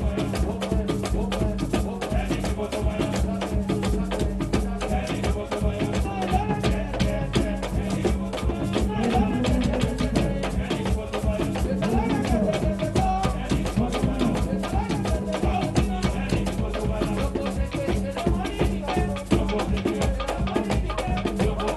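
Loud parade music driven by fast, dense drum and rattle percussion, with a steady low note and a melody over it.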